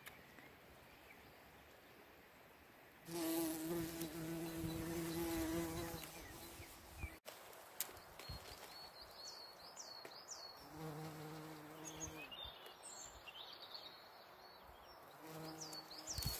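Common carder bumblebee buzzing in flight, a low droning hum that comes and goes as it moves about. A long stretch of about three seconds starts about three seconds in, followed by two shorter passes later on.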